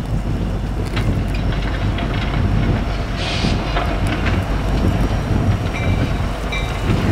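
Freight train rolling by, its wheels and cars giving a steady low rumble with a few clicks on the rail, and a short hiss about three seconds in.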